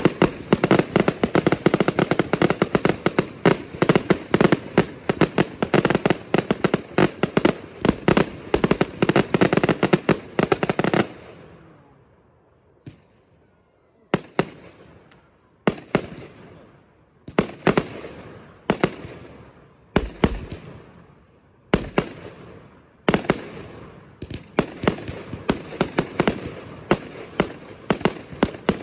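Aerial fireworks firing: a dense barrage of rapid bangs for about eleven seconds that dies away, then single bursts about every second and a half, each trailing off, growing denser again near the end.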